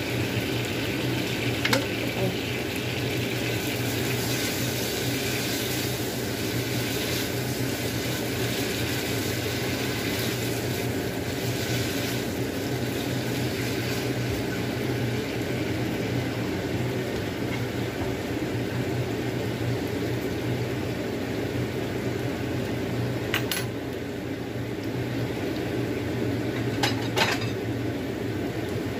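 A steady hum and hiss of kitchen noise throughout, with sharp clinks of plates and dishes, once early on and a couple of times near the end, as dishes are taken from a cabinet.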